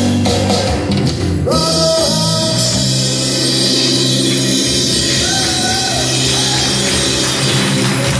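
Ukulele band playing a song, strummed ukuleles with voices singing along.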